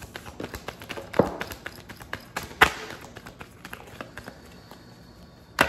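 A deck of tarot cards being shuffled by hand: a run of quick, irregular card clicks and flicks, with three sharper, louder snaps, about a second in, near the middle and at the end.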